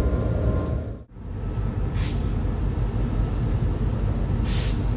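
Steady low rumble of a train running along the track, heard from the front of the train, with two short hisses about two and a half seconds apart. The sound briefly drops out about a second in.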